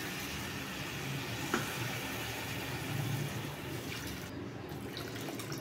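Water pouring steadily from a bowl into a steel pressure cooker onto fried moong dal, rice and vegetables: the water for the khichdi going in before it is cooked under pressure.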